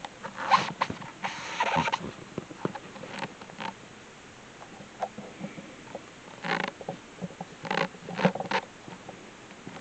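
Handling noise of the recording phone: irregular rustles, scrapes and clicks, in a cluster over the first two seconds and another near the end.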